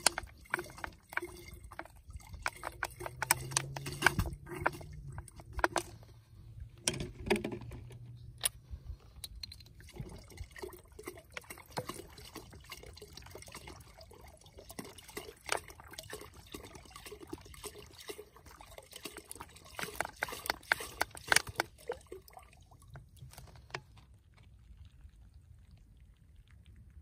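Clear liquid poured from a small plastic bottle into a large plastic jug, trickling and splashing with irregular sharp drips. The pouring tails off and stops near the end.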